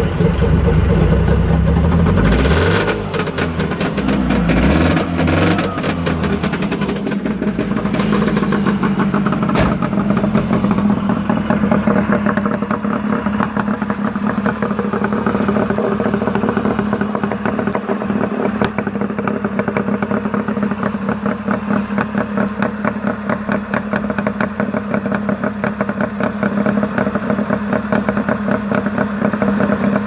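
A tuned two-stroke twin engine of a Subaru 360 microcar runs with its revs rising and falling for the first several seconds. It then settles into a steady, fast-firing idle heard close to the tailpipe.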